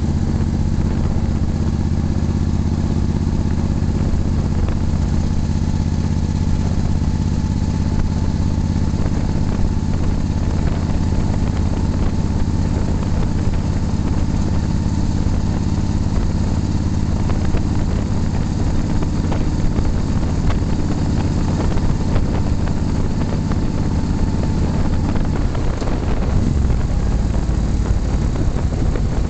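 Motorcycle engine running steadily while riding along an open road. The engine note shifts briefly near the end.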